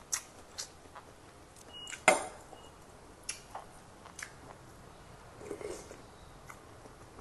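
Metal spoon and fork clinking and scraping against a plate, a handful of short clicks with one sharp, ringing clink about two seconds in. Soft chewing sounds come between them.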